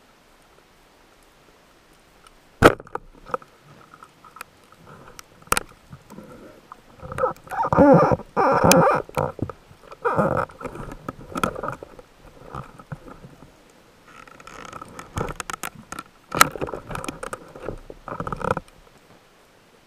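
Underwater sounds of spearfishing for European sea bass: two sharp clicks a few seconds apart, then repeated bursts of knocking and rumbling as a speared sea bass struggles on the shaft line close to the camera.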